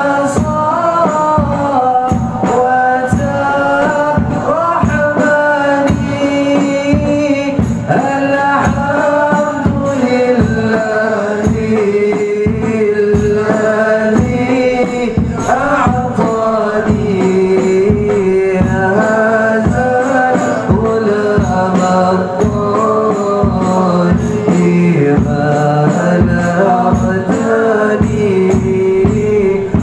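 Men singing a devotional maulid song in praise of the Prophet, a single melody line over a steady, regular hand-drum beat.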